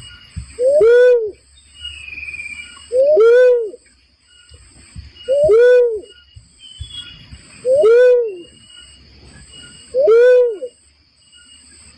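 Barred cuckoo-dove calling: a single deep hooting note that rises and falls in pitch, repeated five times at an even pace of about one every two and a half seconds, as played for a bird lure. Faint steady high-pitched buzzing sits behind it.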